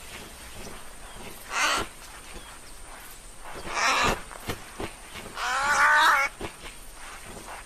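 Animal calls over a faint steady outdoor background: a short harsh call about two seconds in, another near four seconds, then a louder pitched call that wavers, lasting under a second, near the end.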